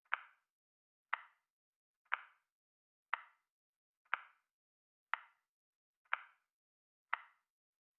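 Tick sound of a countdown timer: one short, sharp tick each second, evenly paced.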